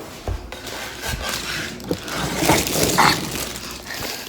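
Irregular mechanical clicking and rattling as a handheld kitchen gadget for frozen food is worked by hand, on a second try.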